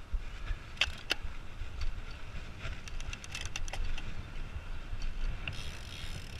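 Bicycle ride heard through a handlebar-mounted action camera: a steady low wind rumble, with two sharp clicks about a second in and a run of lighter rattling ticks around three to four seconds in.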